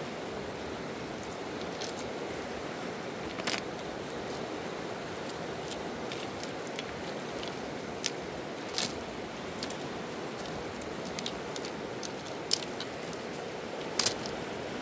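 Steady rushing of a river flowing past a pebble bank, with a few sharp clicks of stones being handled on the gravel.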